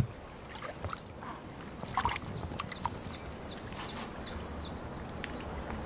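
Light water splashing with a few drips, then a quick run of about ten high, falling chirps.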